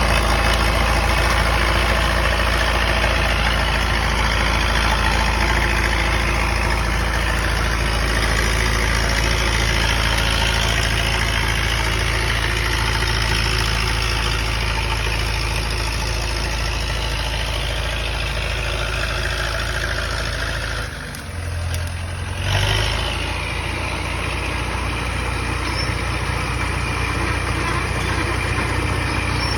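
Caterpillar D4E crawler dozer's diesel engine running steadily. About two-thirds of the way through the sound dips briefly and shifts in pitch, then settles back to a steady run.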